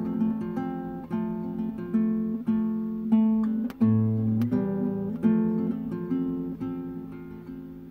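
Acoustic guitar playing an instrumental passage of a song without vocals: picked notes and chords, each ringing out and fading.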